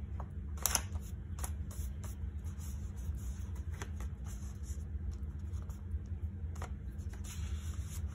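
Sheets of paper being handled and shuffled: scattered light taps and flicks, and a short rustle near the end, over a steady low hum.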